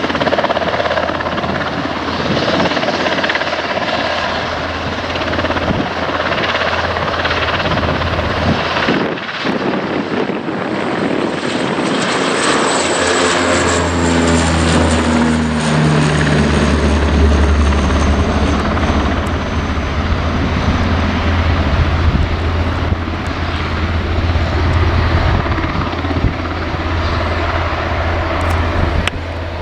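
Bombardier Dash 8 Q100's twin turboprops running at takeoff power, a loud propeller drone. About halfway through, its pitch slides down over a few seconds as the aircraft passes, settling into a steady deep drone.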